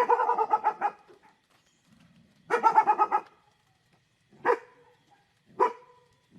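A dog barking: a quick run of barks at the start, another rapid run about two and a half seconds in, then two single barks about a second apart.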